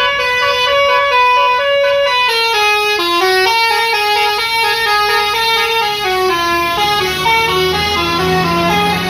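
Bus musical air horn ('telolet' horn) playing a melody of quick stepped notes, several horn tones sounding together. Near the end the bus engine's low hum comes up as it pulls away.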